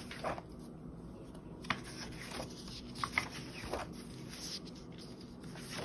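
Paper pages of a spiral-bound planner being turned and handled: several short rustles and swishes of paper a second or so apart.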